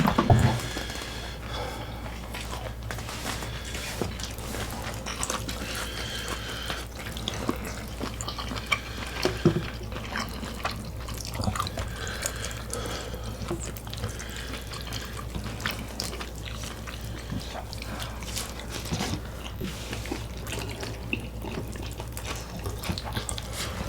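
Close-miked eating sounds: irregular wet chewing and small clicks and smacks, over a steady low hum.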